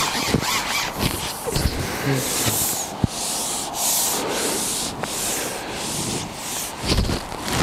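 Repeated rubbing or scraping strokes, coming in quick bursts under a second apart, with one sharp click about three seconds in.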